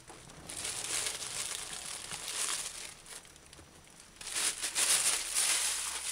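Thin plastic bag crinkling as it is handled and set down on a counter. It comes in two spells: from about half a second in for two seconds, then louder from about four seconds in.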